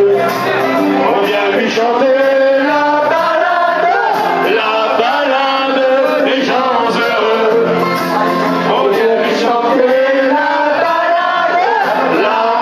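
Karaoke: men singing a song into handheld microphones over a recorded backing track, the lead voice loud and a little rough.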